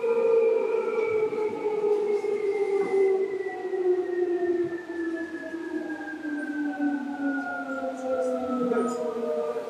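Seibu 2000 series electric train running, its traction motor and gear whine in several tones falling steadily in pitch as the train slows down.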